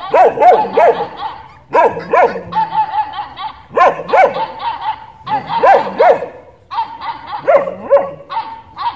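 A dog barking in short volleys of two or three barks, one volley about every two seconds. A steady higher-pitched note carries on between the volleys.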